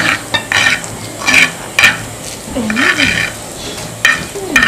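A utensil scraping and mashing a coarse jackfruit-seed bharta against the rough inside of a clay batna grating bowl: a series of short, scratchy strokes, irregularly spaced about every half second.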